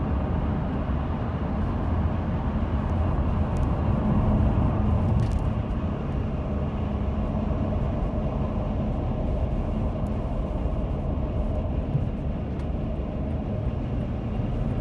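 Steady rushing wind and road noise inside the cabin of a 2017 Toyota Sienna minivan driving at highway speed, with the windows up and the AC off. The owner takes it for excessive wind noise, sounding as if the AC were on.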